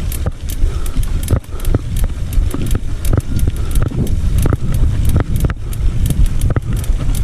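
Mountain bike in motion: wind rumbling on the microphone, with frequent sharp clicks and knocks from the bike rattling as it rides.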